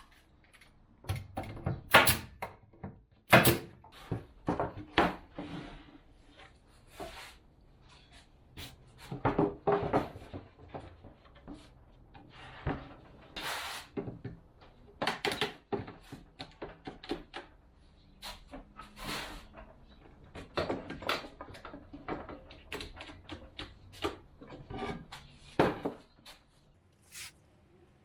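Irregular wooden knocks and clatter, as boards and cabinet parts are handled and set down, with a few sharp louder knocks about two and three and a half seconds in and near the end.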